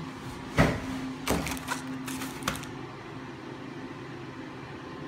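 A few sharp knocks and clatters, about half a second, a second and two and a half seconds in, over a steady low hum.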